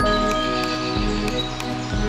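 Background music: held chords over a low bass note that comes back about once a second.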